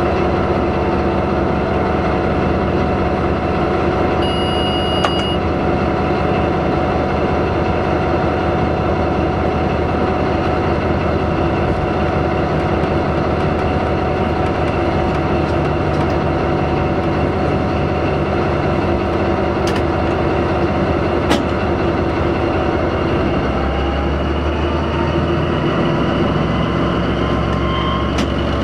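Locomotive running along the track, heard at its open cab window: a steady rumble of running gear and motor with rushing wind and a constant hum. A short high beep sounds about four seconds in, and the low hum changes pitch near the end.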